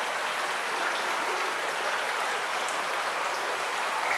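Steady rush of water, an even hiss that stays level throughout.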